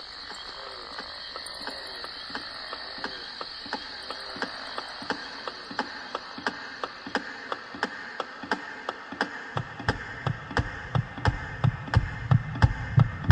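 Old watch ticking steadily, about two ticks a second, growing gradually louder. From about two-thirds of the way in, a deep throbbing pulse like a heartbeat joins, beating in time with the ticks.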